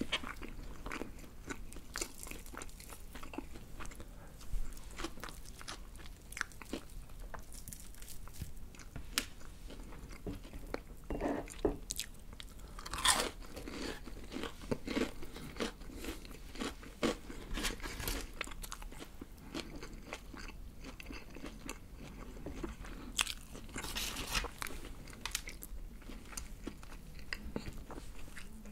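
Crisp batter of BBQ Golden Olive fried chicken crunching close to the microphone as the pieces are torn apart by hand and chewed: a steady run of sharp crackles, busiest a little before halfway and again near the end.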